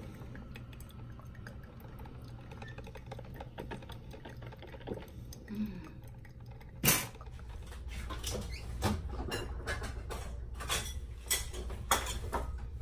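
A Mr. Coffee drip coffee maker brewing into its glass carafe, with a faint, rapid patter of dripping and ticking. About seven seconds in there is a sharp click, followed by irregular clicks, knocks and rustles of a plastic bread bag and a butter tub being handled on a counter.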